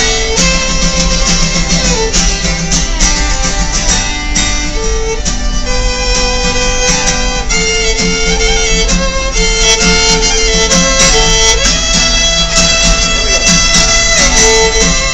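Acoustic fiddle playing a tune in held and sliding notes, with a guitar playing rhythm chords underneath.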